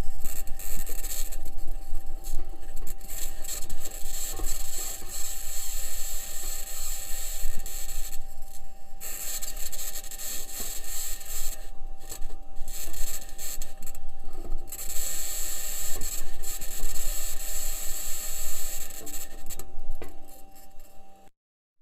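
Perseverance rover's microphone recording of the rover driving on Mars: continuous scraping, grinding and rattling from its wheels over rock, with a steady high whine, cutting off suddenly near the end.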